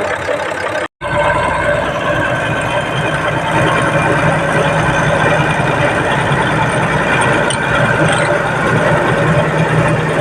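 Komatsu bulldozer's diesel engine running steadily and loud, with a firm low hum. About a second in the sound cuts out completely for a split second, then the engine resumes.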